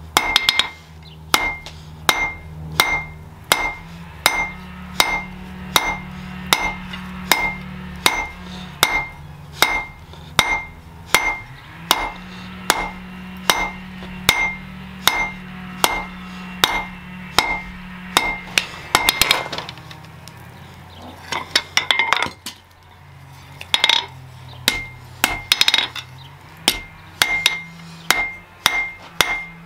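Hand hammer striking steel on an anvil in a steady rhythm, about one and a half blows a second, the anvil ringing after each blow. There is a quick flurry of lighter taps about two-thirds of the way in and a brief pause before the blows resume.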